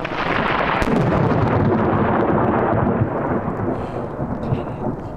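Thunder: a loud rumble that starts suddenly with a sharp crack under a second in, stays loudest for about three seconds, then slowly fades.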